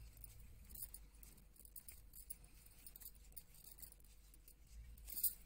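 Faint rustling and small clicks of a crocheted yarn cord and knitted wool shoe being handled by fingers as the cord is tied in a knot, with a louder rustle near the end.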